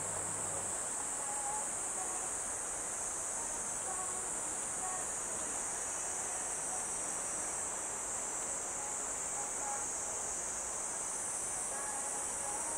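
Steady, unbroken high-pitched insect chorus of summer crickets or cicadas, with faint distant sounds beneath it.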